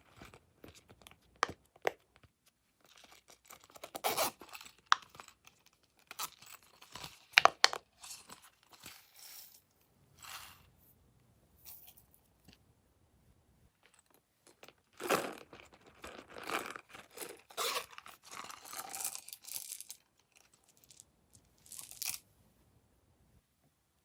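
Hands working slime and small craft items, making crackly crunching and crinkling noises in irregular bursts, with a few sharp clicks, the loudest a little past the middle of the first half, and a longer busy stretch later on.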